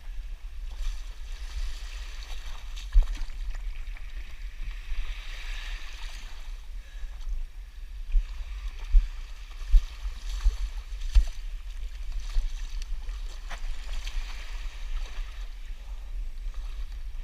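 Wind buffeting the microphone, with water hissing and splashing past the hulls of a Hobie 14 catamaran under sail. Sharp gusts thump the microphone once about three seconds in and several times around nine to eleven seconds in.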